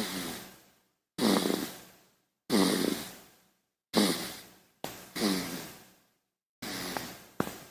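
A sleeping baby snoring and breathing: about seven short, sigh-like breaths, roughly one a second. Each starts sharply and fades away, with silence in between.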